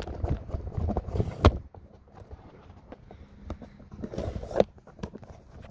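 Footsteps and handling scuffs with irregular knocks, including a sharp knock about a second and a half in and a rustling burst about four seconds in.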